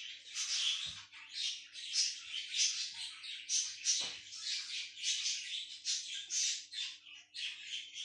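Small bird chirping over and over in short, high-pitched calls, about two to three a second.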